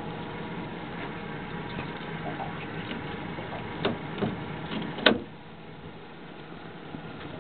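A small boat's motor running steadily with an even hum, with a few knocks and a sharp, loud knock about five seconds in, after which the hum is a little quieter.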